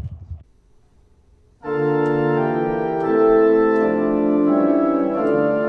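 Home electronic organ playing sustained chords. The chords begin about a second and a half in and shift to new notes several times.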